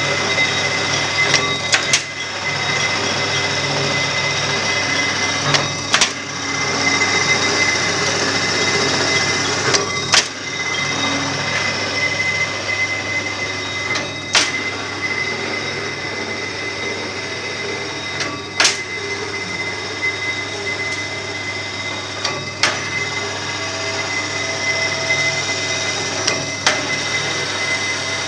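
Collet-type screw grooving machine running steadily with a thin high whine. A sharp click comes about every four seconds in a regular rhythm.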